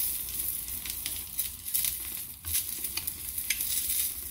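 Nopal cactus paddle sizzling in a little oil on a hot pan: a steady high hiss with scattered small crackles.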